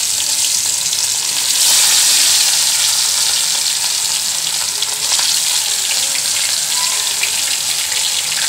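Rohu fish pieces sizzling in hot oil in a kadhai as they deep-fry, a steady hiss that swells about a second and a half in as another piece goes into the oil.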